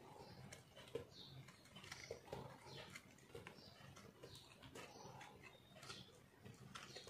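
Knife blade scraping and crunching through a crumbly block of re-molded soap in faint, irregular strokes, with small crumbs breaking off.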